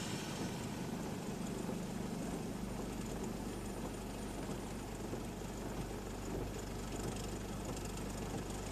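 Steady running noise inside a car's cabin as it creeps through slow traffic on a wet road: a low engine hum under an even hiss of rain and tyres.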